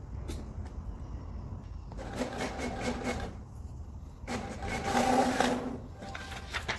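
HP OfficeJet Pro 8720 inkjet printer printing a test page: two stretches of motor whirring and rapid clicking as the print carriage and paper feed run.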